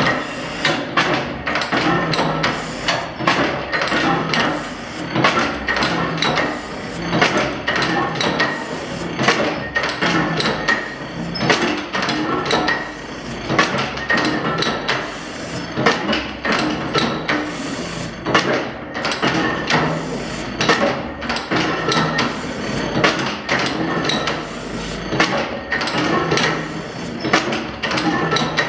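Old vertical gas engine with carrier flame ignition running: a steady clatter of knocks and clicks from its valve gear and moving parts, several a second, over a low hum.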